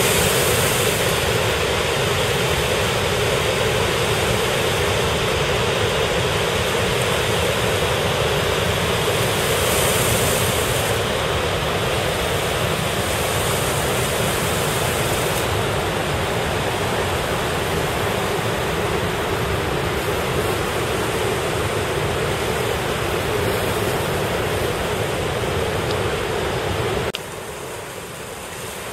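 Steady rushing noise of high, fast-flowing floodwater. It drops abruptly in level near the end.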